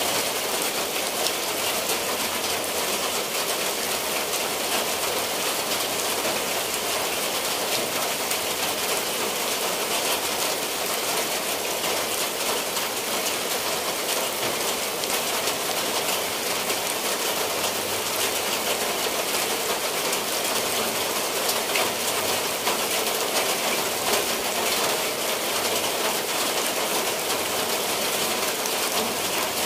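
Steady rain falling on clay-tiled roofs and the ground: an even, unbroken hiss of many fine drops.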